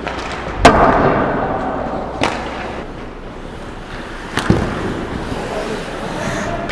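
Three sharp cracks of hockey puck and sticks striking in an echoing ice rink, the first and loudest about half a second in, the others about two and four seconds in, each ringing out in the arena.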